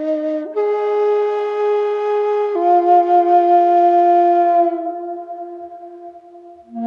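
Slow, calm background music led by a flute-like wind instrument holding long notes. The pitch steps to a new note about half a second in and again past two and a half seconds, then the note fades away, and a new phrase begins right at the end.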